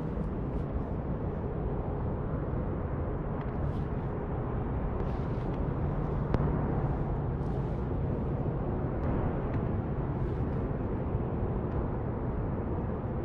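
Steady wind rumble on the microphone, with water lapping faintly at the kayak and a few faint ticks, one sharper click about six seconds in.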